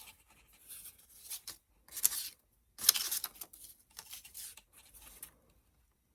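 Fabric being cut with material scissors: a series of short, crisp snips and rustles that stop a little before the end.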